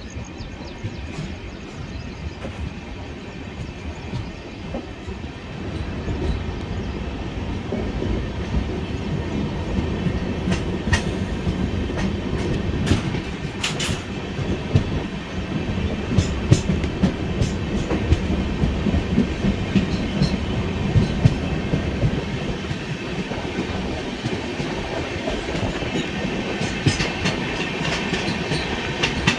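Passenger express train running along the track, heard from on board: a steady rumble with the clickety-clack of the wheels over rail joints. It grows louder over the first several seconds, then holds.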